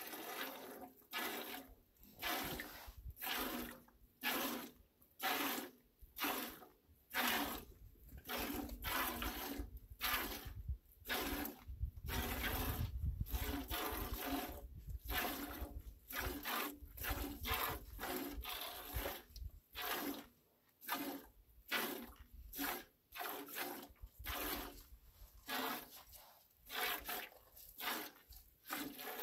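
Hand-milking a cow: squirts of milk from the teats hitting milk in a stainless steel stockpot, in a steady rhythm of about two squirts a second.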